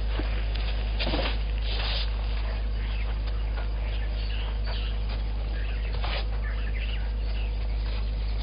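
Steady low hum from an outdoor wildlife-camera microphone, with a few short rustles about one, two and six seconds in and faint bird chirps.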